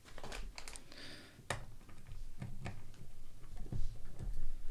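Small ratchet driver clicking in short, uneven runs as the bolts joining the two halves of a brake caliper are snugged down, after some handling of the tool and one sharp click about a second and a half in.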